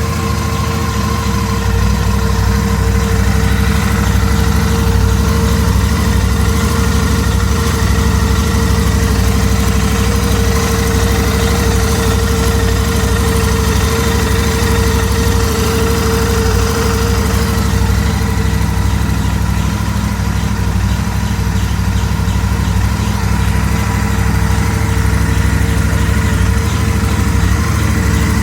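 Royal Enfield Interceptor 650's parallel-twin engine idling steadily, with a steady howl riding over the engine note. The owner takes the howl for an abnormal noise from the engine.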